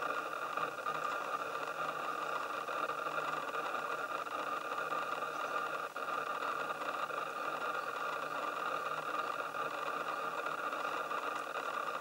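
Steady whirring hiss with a few faint fixed tones and no distinct events or bird calls: the camera and stabilised telephoto lens's own running noise, picked up by the on-camera microphone.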